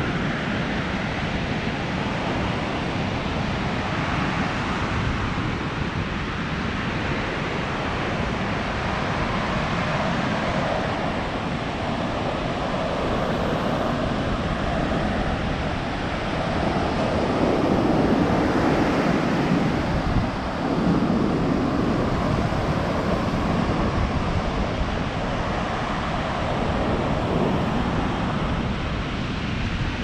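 Pacific Ocean surf breaking and washing up the beach, swelling and easing with each wave, with wind rumbling on the microphone.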